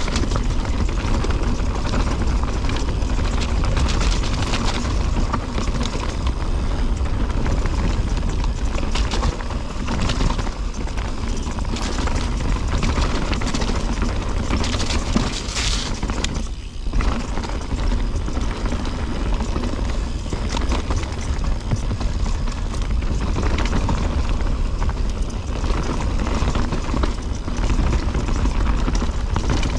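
Mountain bike riding fast down a rocky dirt trail: tyres rolling and crunching over dirt and stones, with the bike rattling and clattering over bumps, under heavy wind rush on the camera's microphone. The noise dips briefly about halfway through.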